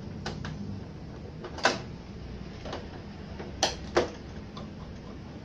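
Short sharp clicks and knocks of a screwdriver and hands working the plastic rear cabinet of a CRT television, a few light ones, a louder knock about a second and a half in and two more close together near four seconds. A low steady hum runs beneath.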